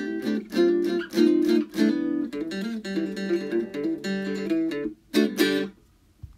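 Guitar music: a run of plucked and strummed chords. It pauses briefly, plays two last chords and stops near the end.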